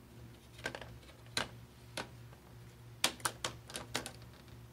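Plastic display bezel of a Lenovo ThinkPad T420 being pried off by hand, its retaining clips popping free in a series of sharp clicks, several in quick succession about three seconds in.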